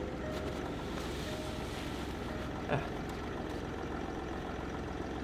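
Land Rover Discovery 4's V6 diesel engine idling just after a cold start with no preheating, running smoothly but with a sound likened to train sounds. A faint short tone repeats about once a second over the steady running, with a single click about halfway through.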